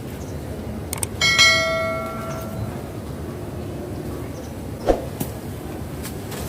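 A single metallic clang about a second in, ringing on with several clear tones for about a second and a half. A short knock follows near the end, over a steady hiss.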